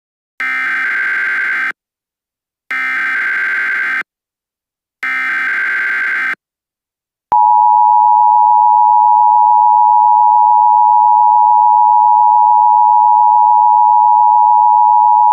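Emergency Alert System tones: three short buzzy bursts of SAME digital header data, each a little over a second long, then the steady two-tone EAS attention signal (853 and 960 Hz), which starts about seven seconds in and holds. Together they open an all-clear alert.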